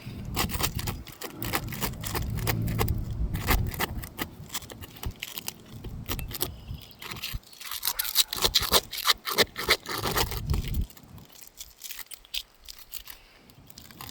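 Metal pry tools (a roof snake and flat bar) scraping and prying under asphalt shingles to break the sealant bond, making a run of irregular sharp clicks and scrapes. The clicks come thickest about eight to ten seconds in.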